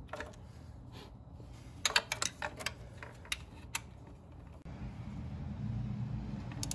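Torque wrench ratcheting in a scatter of sharp clicks as the bolts of an aluminum-mounted thermostat housing are tightened to 159 inch-pounds, with a quick run of clicks just before two seconds in. A steady low hum comes in about two-thirds through.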